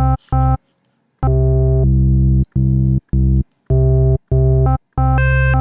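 Xfer Serum software synthesizer playing a bass line: about eight held bass notes with short gaps between them, a sub oscillator layered with an oscillator an octave above. The tone of the last note changes as digital wavetables are auditioned for the upper oscillator.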